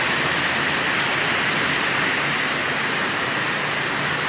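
Steady rushing of fast-flowing floodwater, an even hiss without breaks.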